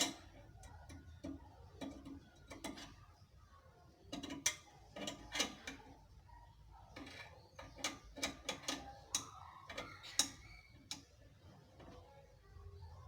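Irregular metal clicks and clanks of a lug wrench working a car's wheel nuts during a tyre change, in clusters with short pauses between.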